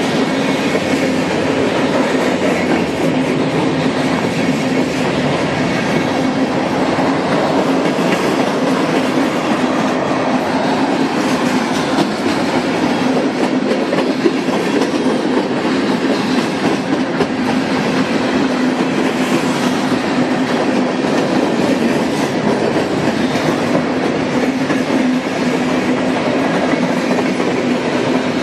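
Freight train cars rolling past close by: a loud, steady rolling noise of wheels on rail with a constant hum running through it.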